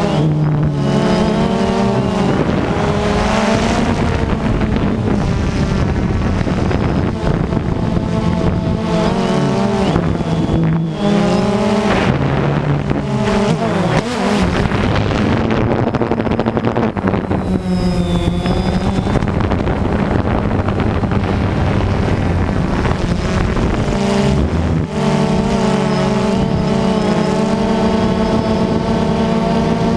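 DJI Phantom 2 quadcopter's four electric motors and propellers whining, heard from on board. The pitch rises and falls as the drone manoeuvres, with a few abrupt breaks.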